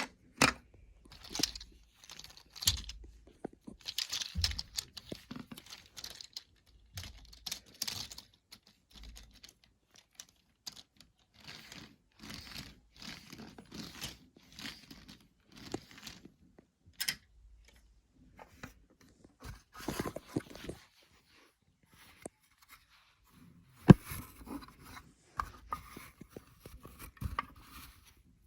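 Lego plastic parts being handled: irregular clicks, knocks, scrapes and rustles, with a few short pauses.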